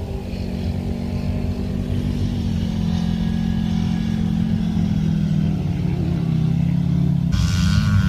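Polaris RZR XP 4 side-by-side's engine running steadily while driving, its pitch shifting slightly, with a loud hiss near the end.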